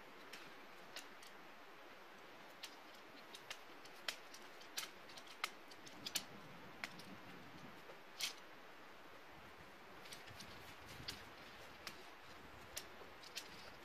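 Faint, irregular clicks and light knocks of camping gear being handled and loaded into a Jeep, over a quiet background hush.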